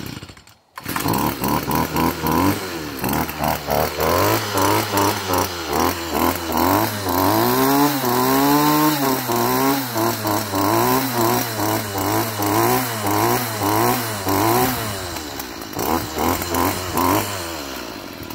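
Stihl FS38 string trimmer's small two-stroke engine pull-started without the choke, catching about a second in, then revved up and down over and over with the throttle before dropping back toward idle near the end.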